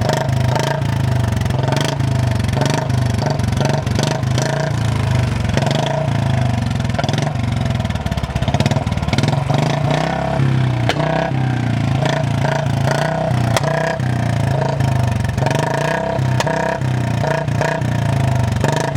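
Royal Enfield Standard Bullet 350's single-cylinder engine running through a short dholki aftermarket silencer, giving a steady, loud exhaust beat.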